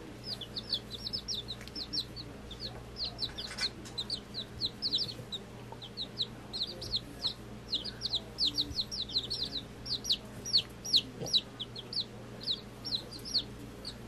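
Week-old chicks peeping continuously: short, high-pitched peeps that slide down in pitch, several a second.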